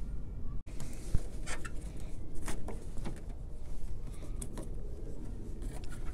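Plastic interior trim panel on a 2013 Toyota Sienna's rear liftgate being pried loose with a screwdriver: scattered small clicks and creaks of plastic over a low steady background rumble.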